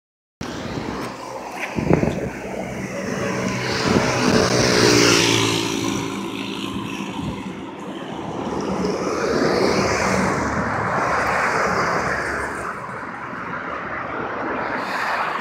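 Road traffic passing close by: an engine drones past with its pitch falling slightly, then a second swell of traffic noise rises and fades, with a sharp click about two seconds in.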